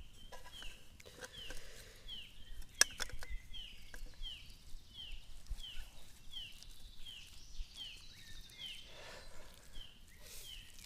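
A small bird calling over and over, a short falling note repeated about twice a second, with one sharp click about three seconds in.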